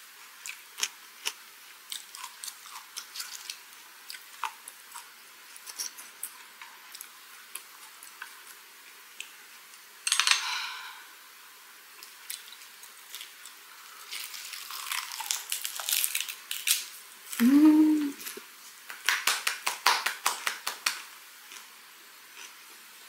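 Close-up eating sounds: small clicks of chopsticks and rustling of leaves as a wrap of herring gwamegi in greens is put together, then crunchy chewing of the raw vegetables in it from a little past the middle. A short hummed "mm" that rises and falls breaks in partway through the chewing.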